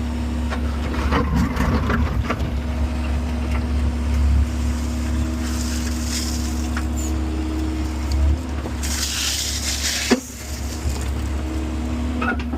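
Mini excavator's diesel engine running steadily at full throttle, with a steady hum over its drone, a few clicks near the start, scraping hiss in the middle and a single sharp knock about ten seconds in as the bucket works.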